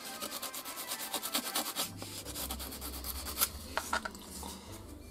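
Abrasive paper rubbed by hand over the thin metal elbow tube of a gramophone horn, cleaning the metal before soldering. Quick back-and-forth scratchy strokes, thinning out to a few separate strokes after about two seconds.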